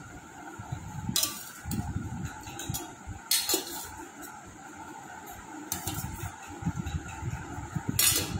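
Tableware clinking during a meal: four sharp knocks of dishes or a glass spread over several seconds, over a steady background hum.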